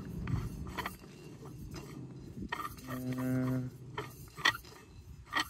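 A brass path light being unscrewed by hand, its threaded metal parts giving light clicks and scrapes, with a short steady low hum about three seconds in.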